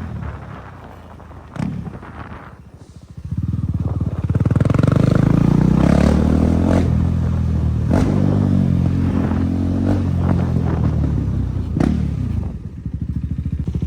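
KTM Duke 390's single-cylinder engine running with its exhaust removed, very loud. It comes in about three seconds in and revs up and down, with a few sharp cracks. Near the end it drops back to a fast, pulsing idle.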